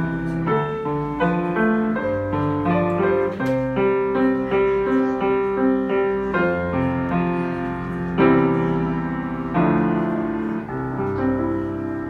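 Piano playing a pop-song melody over chords, with two strong chords about eight and nine and a half seconds in, after which the playing dies away.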